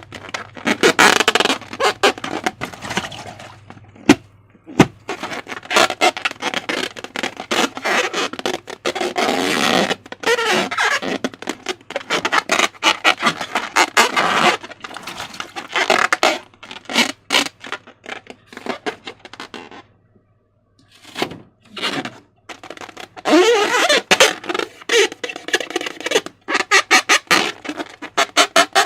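Slime being squeezed and worked by hand: wet crackling, clicking and squelching in irregular bursts, with a brief pause about twenty seconds in.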